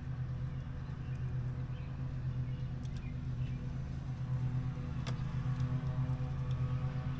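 A steady low mechanical hum, like a running engine or motor, with a slight pulse in its level; a single sharp click sounds about five seconds in.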